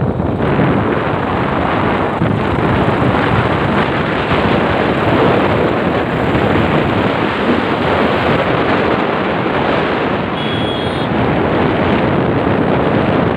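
Steady, loud wind rush buffeting a phone's microphone on a moving motorcycle.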